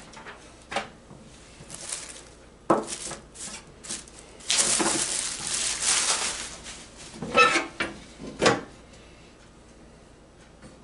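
Plastic wrapping rustling and crinkling for about two seconds midway through, between scattered knocks and clatters as a Blackstone 17-inch electric griddle's lid is handled and lifted open.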